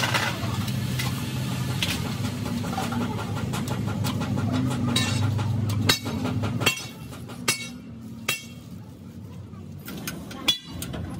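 A vehicle engine running steadily, which stops about two-thirds of the way through. Sharp metal clinks, each with a short ring, come about five times, spaced roughly a second apart, from metal tools and parts being handled.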